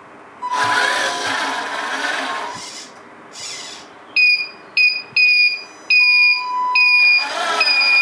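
A hiss lasting about two seconds, then six high electronic beeps in the second half, each cut off sharply and of uneven length.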